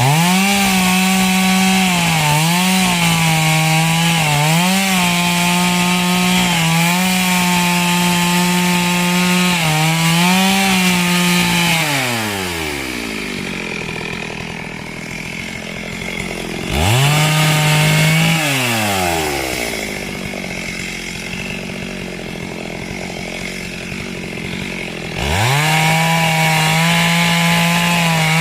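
Two-stroke chainsaw at full throttle, its pitch dipping now and then as it is loaded in the cut. About twelve seconds in it falls to idle, revs briefly once, then idles until it is revved high again near the end.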